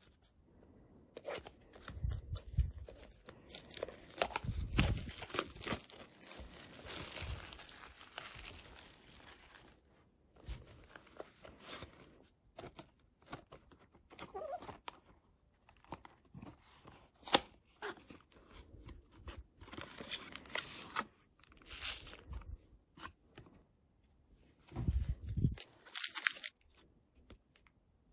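Packaging being torn open by hand: the cardboard box of a Pokémon card booster bundle and a foil booster pack, crinkling and ripping in a long stretch of tearing, then shorter rustles and clicks as the packs and cards are handled.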